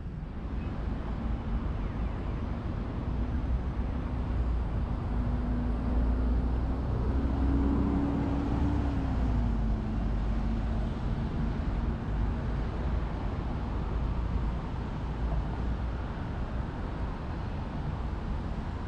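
Road traffic with a steady low rumble; one vehicle's engine note climbs slowly and gets louder, then drops in pitch about halfway through as the vehicle goes by.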